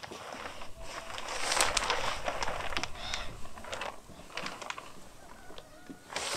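Scattered plastic clicks and knocks from handling the tank of a motorized backpack mist sprayer as it is being filled, with a few faint bird calls.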